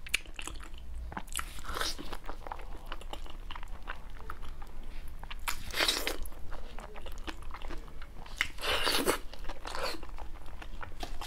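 A person biting and chewing food with a crunch: a run of small crackly clicks, with louder crunchy bites about two, six and nine seconds in.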